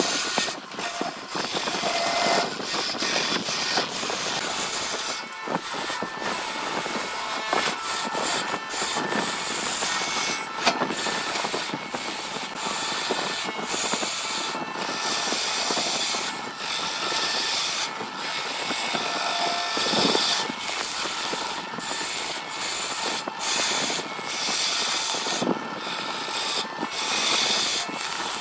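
Turning gouge cutting a spinning wood blank on a wood lathe: a steady hiss of wood being shaved off, broken now and then by short gaps.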